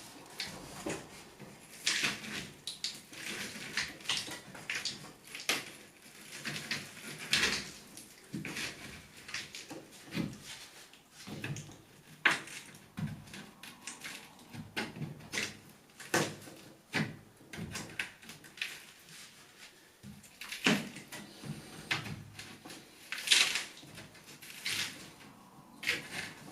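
Irregular knocks, taps and scrapes of a hammer working at a wooden picture rail nailed onto a lath-and-plaster wall.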